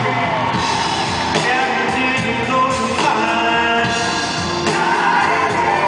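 Live band playing a blues number with singing, recorded from the audience in a large concert hall.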